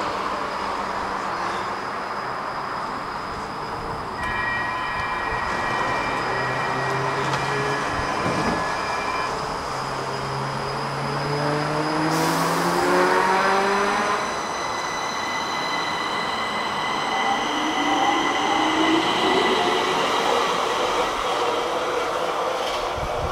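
Stockholm metro train pulling out of an open-air station, its traction motors giving a whine that rises in two runs as it speeds up, over the rumble of wheels on rail.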